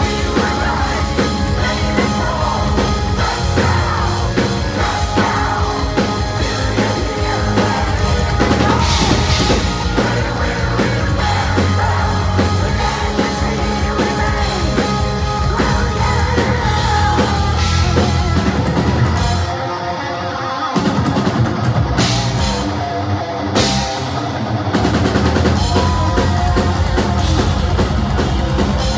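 Heavy metal band playing live: distorted electric guitars, bass and drums, with a singer. About two-thirds of the way in the bottom end drops away for a few seconds and the sound thins, then the full band comes back in.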